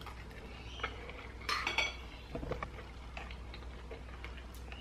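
A metal spoon clinking a few times against a bowl of oat porridge while eating, the clearest clink about a second and a half in.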